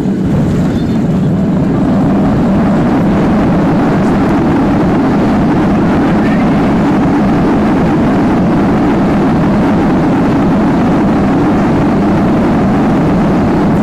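Boeing 737-700's CFM56-7 engines in reverse thrust on the landing roll, heard from inside the cabin: a loud, steady rumble mixed with runway noise. It swells about a second or two in, then holds level.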